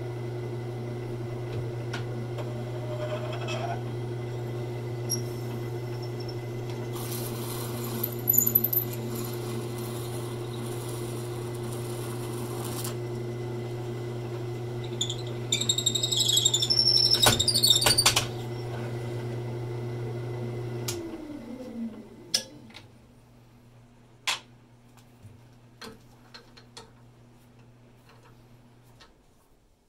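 Wood lathe running at about 450 rpm while a 5/8 drill bit in the tailstock chuck bores through an acrylic pen blank. The bit cuts in loud, high-pitched bursts about 8 seconds in and again from about 15 to 18 seconds. The lathe motor winds down about 21 seconds in, followed by a few sharp clicks and knocks.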